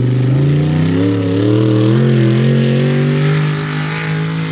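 Mud racing truck's engine revving hard under full acceleration through the mud. Its pitch climbs steadily over the first few seconds, wavers a little, then holds high and steady near the end.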